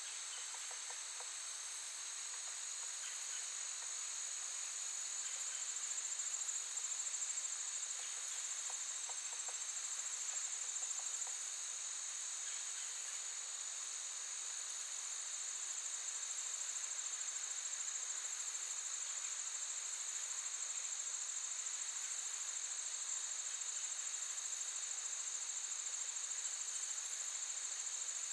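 Insects trilling in a steady, continuous high-pitched chorus, with a second, lower trill beneath it.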